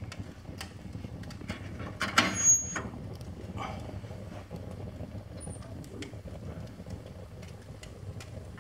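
Paper stamp albums burning in a fireplace: a steady low rush of flame with scattered sharp crackles, and a louder burst of crackling about two seconds in.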